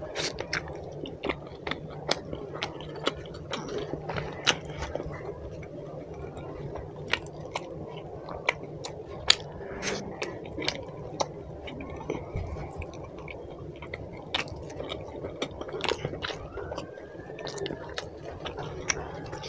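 Close-up, wet chewing and lip-smacking of a man eating chicken curry with roti by hand, with many short sharp mouth clicks, some a few per second.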